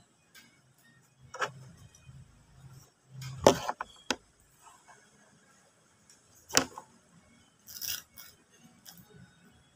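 A person chugging a drink from a small plastic bottle: low gulping swallows with a few sharp clicks and crinkles from the bottle, the loudest about three and a half seconds in.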